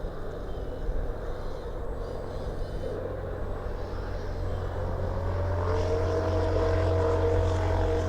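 Small electric motor and gearbox of an RC construction model running with a steady low hum. About five seconds in, a whine rises in pitch and grows louder as the machine works harder.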